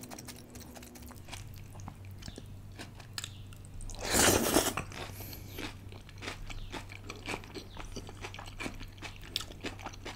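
Close-miked eating of stir-fried udon noodles in black bean sauce by hand: steady wet chewing and small mouth clicks, with one loud, hissing slurp of noodles about four seconds in.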